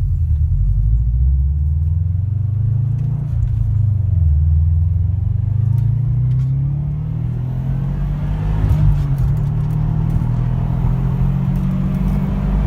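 2013 Subaru WRX STI's turbocharged flat-four engine pulling hard in second gear from a slow roll, heard from inside the cabin. The engine note climbs, drops briefly about four seconds in, then rises steadily again as the car builds boost.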